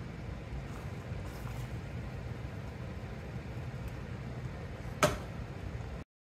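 A steady low hum in a kitchen while thick mango pachadi is stirred in a saucepan with a silicone spoon. About five seconds in there is a single sharp knock, and then the sound cuts off abruptly.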